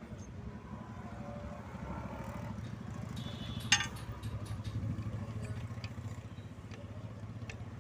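An engine running steadily at idle, a low pulsing rumble, with one sharp metallic clank a little under four seconds in and a few lighter ticks.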